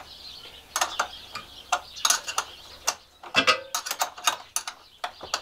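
Irregular metallic clicks and clinks as battery cable ring terminals and terminal bolts are handled and fitted onto battery posts, with a few quick runs of clinks in the middle.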